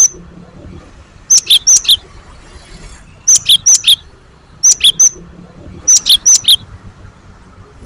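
Cinereous tit (gelatik batu) singing: loud, sharp, high whistled notes in quick clusters of three or four, repeated about four times with short pauses between.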